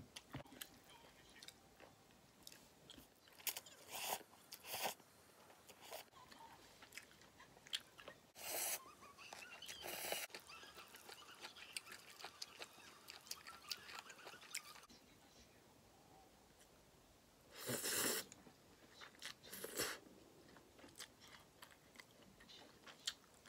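Close-up eating sounds: chewing, with light clicks of wooden chopsticks against a ceramic plate as thin noodles are mixed into spicy stir-fried octopus and pork belly. Several short, louder bursts stand out among the small clicks.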